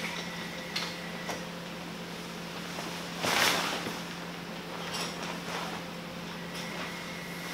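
Nylon sunshade canopy rustling and a steel pop-up tent frame being handled as the tent is worked open, with a few light clicks and one louder swish about three seconds in. A steady low hum runs underneath.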